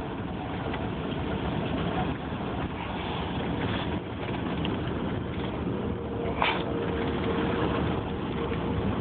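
Steady low rumble of a vehicle being driven, engine and road noise heard from inside the cabin. A faint steady hum comes in during the second half, and a short sharp sound comes about six and a half seconds in.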